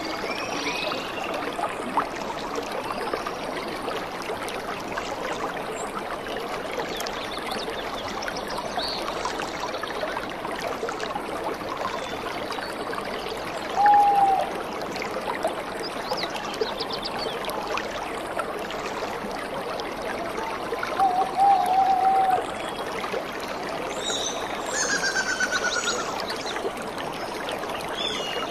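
Steady rush of a waterfall and stream water over rocks, with a few brief higher-pitched sounds about halfway through, again about two thirds in, and near the end.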